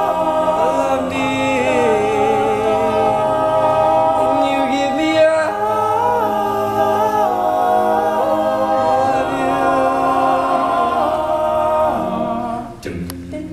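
Men's a cappella group singing: a lead voice with vibrato over sustained backing harmonies. The sound dips briefly with a couple of sharp clicks a little before the end.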